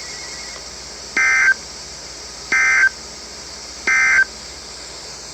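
Three short bursts of warbling digital data tones, roughly a second and a half apart: the EAS (SAME) end-of-message signal that closes the alert.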